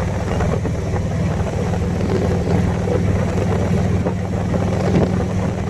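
Harley-Davidson Street Glide's V-twin engine running steadily under way.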